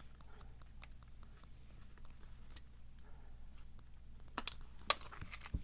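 Faint small metallic clicks and taps: a steel pick working the key pins out of a Master Lock 930's plug. A few sharper clicks stand out over quiet handling, two close together past the middle and one near the end.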